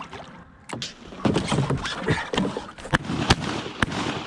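Shotgun shots fired at ducks: three sharp reports in quick succession about three seconds in, the middle one loudest, after a stretch of rustling noise and a couple of fainter knocks.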